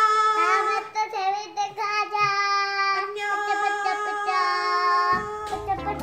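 Young girls singing together in high, long-held notes. Music with a low beat comes in about five seconds in.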